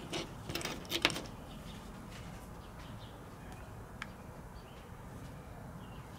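A few light clicks and taps in the first second or so as a small key fob circuit board is picked up and handled by hand, then faint steady background with one small click about four seconds in.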